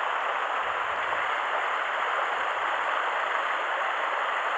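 Steady rush of river water spilling over the stone partitions of a trout-pond section, the stream running high.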